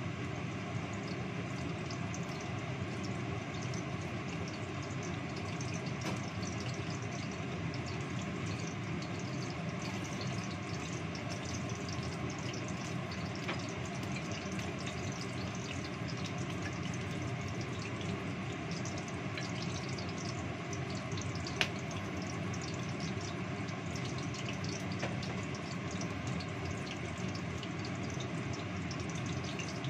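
Kitchen range hood fan running steadily, with a few faint ticks and one sharper click about two-thirds of the way through.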